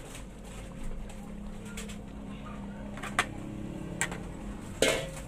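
Boiled rice tipped out of a plastic colander into a pot, with three short sharp knocks as the colander strikes the pot, the last and loudest near the end, over a steady low hum.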